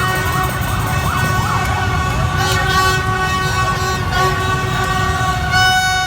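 Horns blaring in steady held tones over the continuous low rumble of motorbike engines in a street celebration crowd, with a shriller horn toot near the end.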